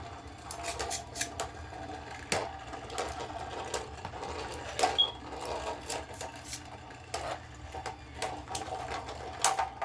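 Two Beyblade spinning tops, one 3D printed, whirring as they spin in a plastic stadium, with sharp irregular clacks as they collide and scrape.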